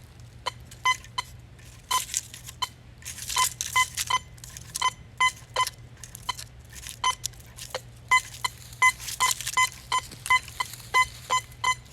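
Teknetics Patriot metal detector in three-tone mode giving short, repeated beeps in clusters as its coil is swung over a wheat penny buried nine inches deep. Brief rustling swishes come between the beeps.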